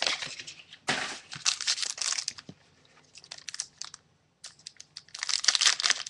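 Plastic blister packaging around trading-card booster packs crinkling and crackling as it is handled and worked open by hand, in two bouts with a pause of about two seconds between them.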